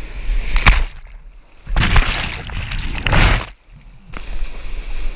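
Whitewater rapids rushing and splashing against a kayak and a head-mounted camera, in three loud surges of spray. The sound drops away briefly after about three and a half seconds, then comes back as a steady rush of water.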